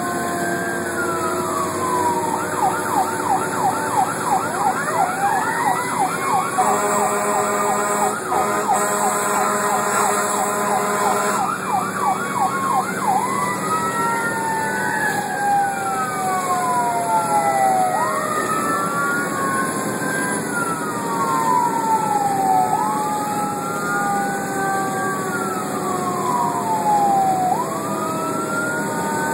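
Fire engine's electronic siren heard from inside the cab. It goes from a wail into about three seconds of fast yelp, then a rapid warble with a steady horn blast over it for about five seconds, then back to a slow wail that rises quickly and falls slowly every few seconds. A second tone glides slowly downward underneath, and engine and road noise run beneath it all.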